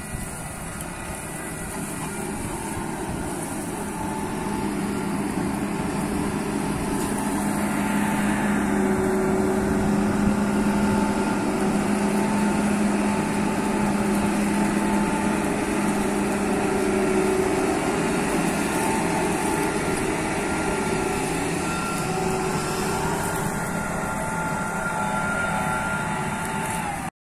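Case IH Axial-Flow 6150 combine harvester running steadily in the field with a constant machine hum, growing louder over the first several seconds.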